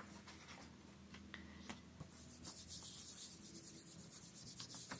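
Faint rubbing of a flat hand over a sheet of sketchbook paper laid on an inked gel printing plate, pressing it down to take the print. A few light taps, then steady rubbing from about two seconds in.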